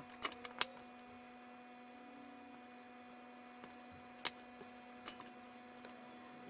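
Faint steady electrical mains hum with a few light, sharp clicks from handling the bare wire and tools during fine hand soldering: two close together just after the start, then single clicks about four and five seconds in.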